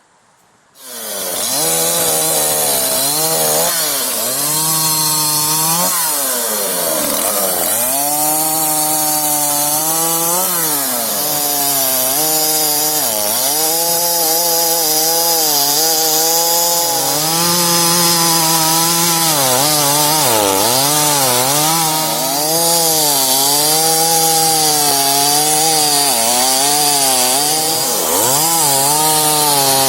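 Efco 136 two-stroke chainsaw engine starting about a second in, then running with its speed rising and falling over and over as the throttle is worked.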